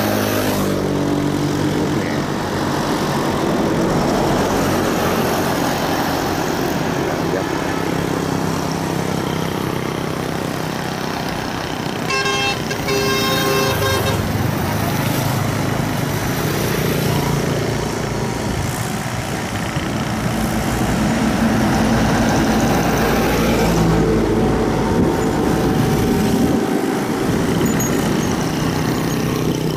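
Shibaura SD4000 tractor's diesel engine running steadily as it tows a trailer loaded with timber. A horn sounds for about two seconds around the middle.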